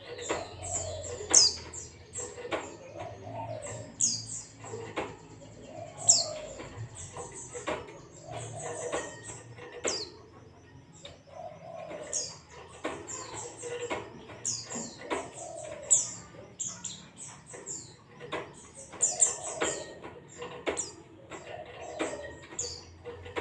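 White-eye (Zosterops, 'pleci') singing a rapid, high-pitched ngalas song of quick chirps and short downward-sweeping whistles, repeated in phrases with short gaps, mixed with sharp clicks. A lower, softer sound recurs every couple of seconds beneath it.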